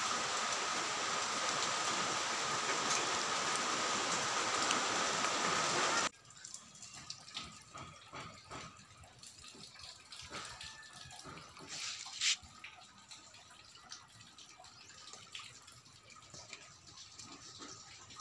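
Steady rush of falling water, likely rain on this wet garden, cutting off abruptly about six seconds in. After that it is quiet, with scattered faint drips and light taps and one brief sharp click a little past the middle.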